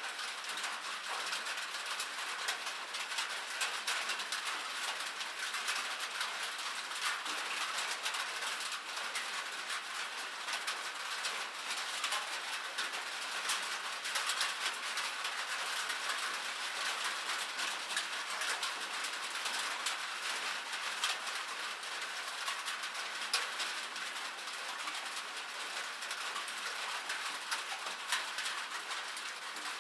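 Light rain falling: a steady hiss made of many small, sharp drop ticks.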